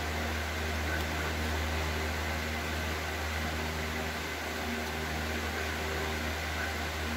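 Steady low mechanical hum with a hiss over it, unchanging throughout, like a small motor such as a fan running.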